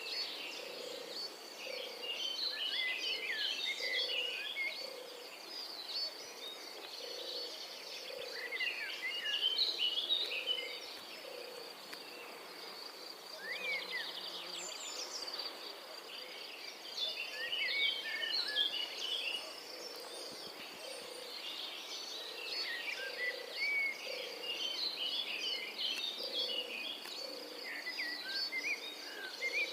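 Outdoor nature ambience: birds chirping and twittering in bursts over a steady high insect drone, with a soft low pulse repeating about once a second.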